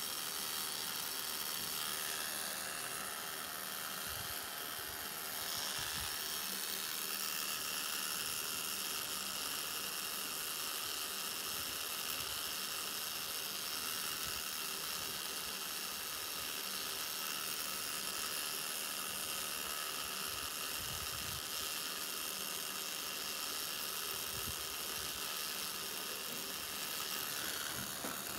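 Tattoo machine running steadily as its needle lines a band tattoo on a forearm, an even hum with a hiss over it.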